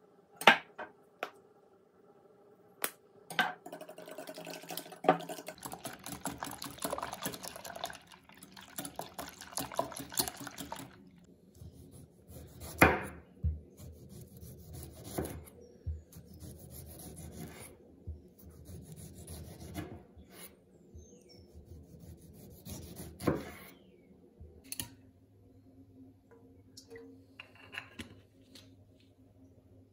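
Kitchen food-preparation sounds: several sharp knocks of utensils against dishes, with stretches of rubbing and scraping and some liquid sounds.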